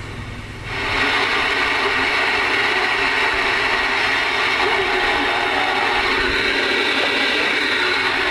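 A Galaxy DX-2547 CB radio receiving through its speaker, opening up about a second in with loud band static, steady carrier whistles and garbled distant voices. The sound holds steady throughout.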